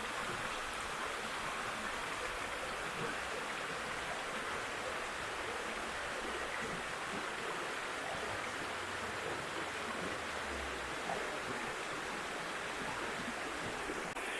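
Dederkoy river water flowing, a steady even rush with no breaks.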